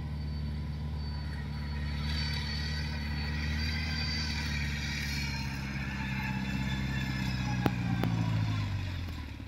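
Engine of a small tracked carrier, loaded with sacks of rice, running steadily; near the end its pitch drops and the sound fades, with two light clicks shortly before.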